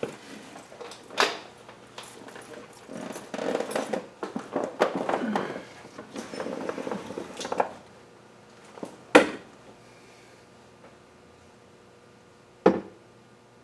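Metal hand tools clanking and scraping on an engine as a wrench is worked on it to try to turn the crankshaft: a stretch of irregular rattling and scraping, with three sharp metallic knocks, one about a second in, one about nine seconds in and one near the end.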